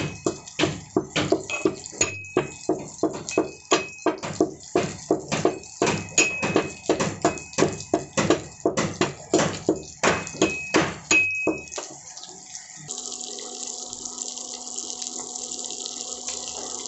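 Metal pestle pounding black peppercorns in a metal mortar, a sharp clinking strike about three times a second with a brief metallic ring. The pounding stops about twelve seconds in and gives way to a steady sizzle of fish offal frying in oil in a pan.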